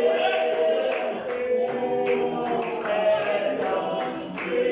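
Mixed church choir singing a cappella in harmony, with long held notes, accompanied by hand clapping.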